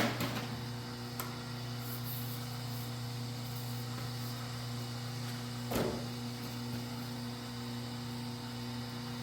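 Steady electrical mains hum, a low buzz with a few steady overtones, with a brief knock about six seconds in.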